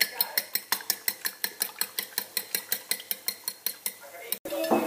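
A metal fork beating raw eggs in a ceramic plate, its tines clicking against the plate about seven times a second in a steady rhythm. The clicking breaks off suddenly near the end, followed by a brief louder sound.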